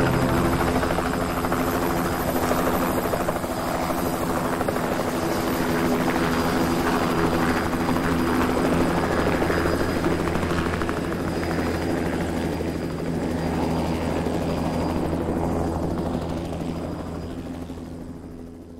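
Light two-blade helicopter hovering low over the snow, its engine and rotor sound steady, then fading out over the last few seconds.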